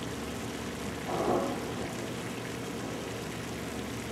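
Distant heavy earthmoving machine's diesel engine running, heard as a low steady rumble under an even hiss, with a brief louder sound about a second in.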